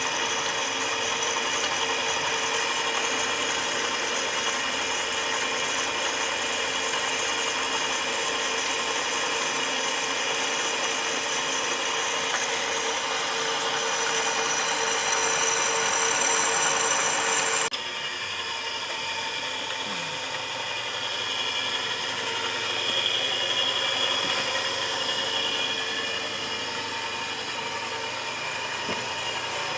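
Old Helmo single-phase bench drill press running steadily with a constant motor hum and whine. The sound changes abruptly about two-thirds of the way through, then runs on steadily.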